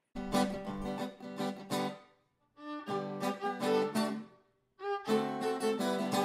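Theme music with fiddle and guitar, in three short phrases separated by brief pauses.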